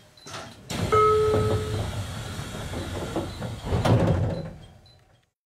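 JR Kyushu 303 series electric train standing at a platform: a sudden rush of air and door mechanism noise with a brief two-pitch tone near the start and a sharp knock about three seconds later, then it fades and cuts off.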